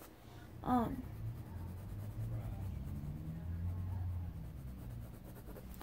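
Pencil scratching across paper as a mouth is sketched, with a brief vocal sound about a second in and a low hum underneath.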